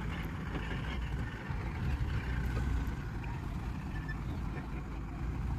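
Diesel engines of heavy machinery (mobile crane, excavator) running with a steady low rumble.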